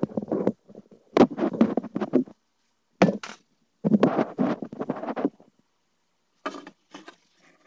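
Handling noise of a microphone being set down, with hands scraping and knocking things about on a wooden workbench, in several uneven bursts with short gaps.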